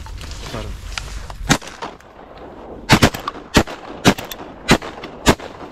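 Shotguns firing at ducks. One shot comes about a second and a half in, then a quick string of about six more shots from several guns over the next two seconds or so.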